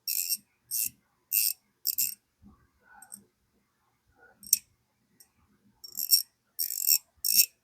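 Mustang MS43 3/8-inch drive ratchet, freshly reassembled, being swung back and forth by hand: short bursts of quick pawl clicking, four in the first two seconds, one midway and three more near the end.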